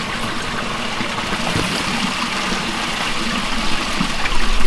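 Small stream running steadily over rocks, a continuous trickling and splashing of water.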